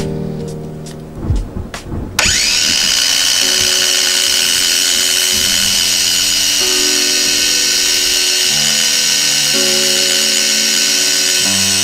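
Ryobi bench grinder switched on about two seconds in, its whine rising as the wheel spins up, then running steadily while a small metal pin is held against the wheel and ground.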